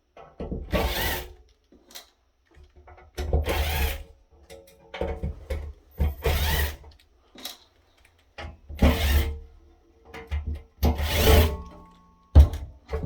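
Power drill backing out the screws of a rack-mount controller's top cover, in short bursts of about a second each, roughly every two seconds.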